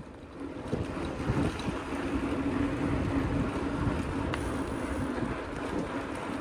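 Wind rushing and buffeting over the microphone as a bicycle is ridden fast on Continental Race King mountain-bike tyres, with a steady low hum of rolling underneath.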